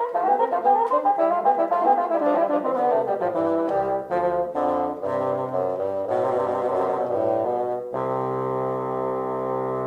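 Background music played on brass instruments: a quick run of notes that steps downward, then settles into a long held chord about eight seconds in.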